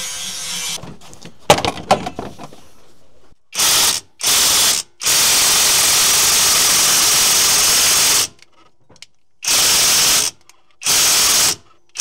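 A few clicks, then a power wrench, most likely an impact wrench, run in five loud bursts of a second or so each, the longest about three seconds. It is working on the Honda J30A9 crankshaft pulley bolt, which does not come undone.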